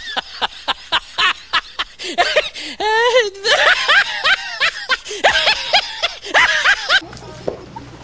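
Loud, hysterical human laughter in quick ha-ha-ha pulses, about four a second, with a long wavering squeal near the middle. It is the dubbed soundtrack of a 'laughing lion' meme clip, and it cuts off suddenly about seven seconds in.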